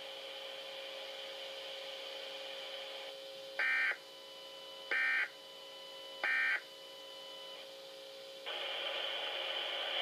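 NOAA weather radio receivers sounding three short bursts of SAME digital data tones about 1.3 seconds apart, the end-of-message code that closes an Emergency Alert System Required Weekly Test. A low steady hum runs beneath them, and hiss rises near the end.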